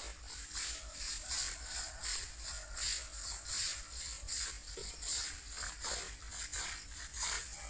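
High, evenly pulsing insect chorus, about two to three pulses a second, with brief rustling among the vegetation.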